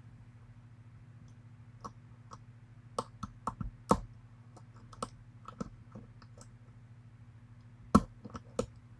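Lock pick and tension wrench working the pins of a pin-tumbler challenge lock: scattered small metallic clicks and taps, a quick cluster about three seconds in and another near the end. A steady low hum runs underneath.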